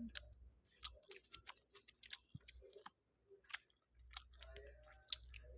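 Faint close-up eating sounds: a string of irregular, sharp mouth clicks and smacks while chewing fried rice and noodles.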